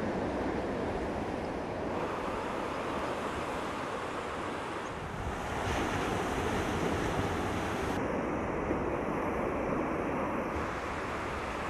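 Atlantic surf breaking, a steady wash of waves that swells louder about halfway through, with wind buffeting the microphone.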